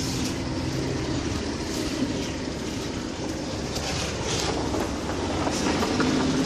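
Steady vehicle rumble with a low engine hum that fades in and out, and light scattered clicks.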